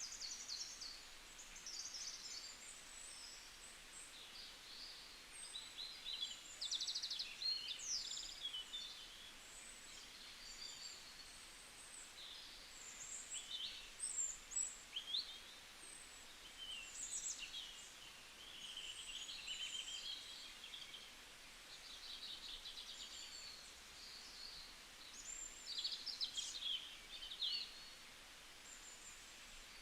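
Forest ambience of several small birds singing: short high chirps, rapid trills and quick whistles overlapping throughout, over a faint steady hiss.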